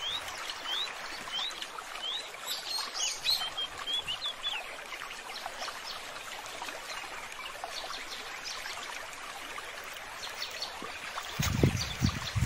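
Muddy stream flowing, a steady rush of water, with a bird repeating short rising chirps over and over during the first few seconds. A brief low rumble comes near the end.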